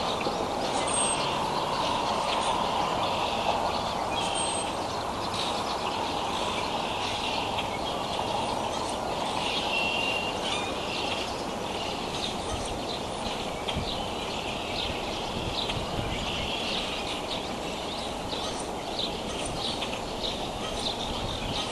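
Small birds chirping and singing in the background over a steady outdoor rumble, with a couple of brief high whistles early on.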